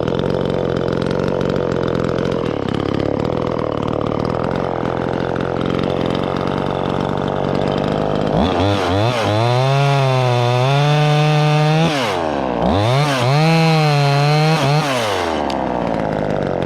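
Gas chainsaw idling steadily, then run up to high revs twice for a few seconds each, the pitch wavering under the throttle, and dropping back to idle.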